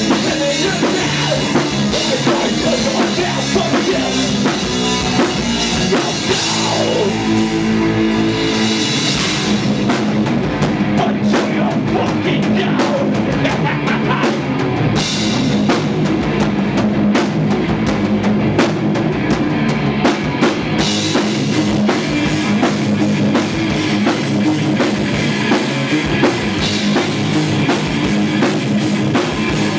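Live heavy metal band playing loud, with the drum kit prominent in fast, dense hits and a falling pitch sweep about seven seconds in.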